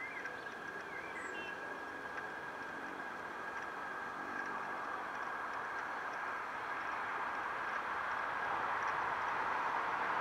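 Steady urban background noise, like far-off traffic, swelling gradually louder toward the end, with a few faint bird chirps about a second in.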